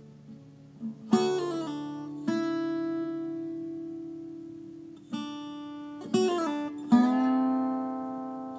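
Acoustic guitar played with a slide in open D tuning, a slow blues: chords struck every second or two and left to ring, with some notes sliding in pitch.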